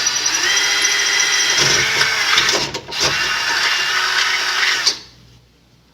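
Electric drill running with a steady whine, boring a 3/8-inch hole into a Jeep frame gusset. The pitch steps up partway, it pauses briefly near the middle, and it stops about five seconds in.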